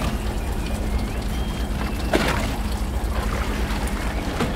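Fishing boat's engine running steadily at low revs, a constant low drone with a hum, and a single sharp knock about two seconds in.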